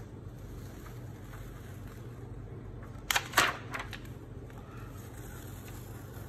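Clear plastic carrier sheet of heat-transfer vinyl crackling in two quick bursts and a smaller third, about three seconds in, as it is cold-peeled off a pressed T-shirt, over a steady low hum.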